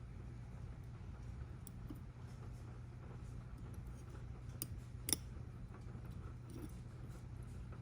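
A few small, sharp clicks of hobby tools handling tiny photo-etch parts, the loudest about five seconds in, over a steady low hum.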